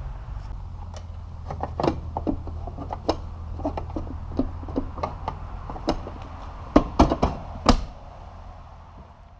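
Irregular knocks and clicks from hands working at a metal electrical panel, with a cluster of sharp knocks about seven seconds in, over a steady low hum. The sound fades out near the end.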